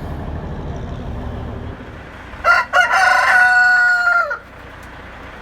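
A low rumble fades out, and a little past halfway a rooster crows once: two short notes, then one long held note that drops at the end.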